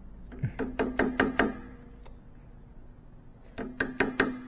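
Metal tools clinking and knocking against a high-pressure washer's pump head while its pressure regulator is worked loose. There are two short runs of quick taps: about six starting half a second in, and about four near the end.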